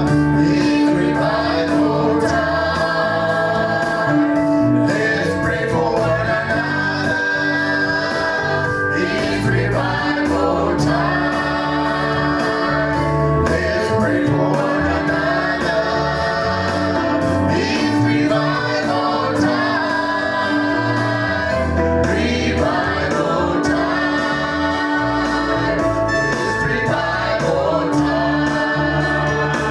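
Gospel music, with a choir singing over a steady beat.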